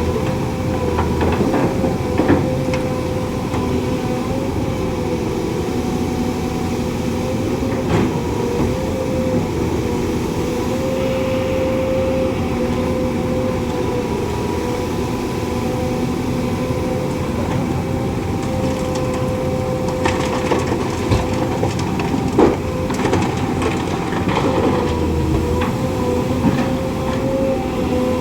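Loaded dump truck's diesel engine running at a steady pitch under load, with a few sharp knocks and rattles.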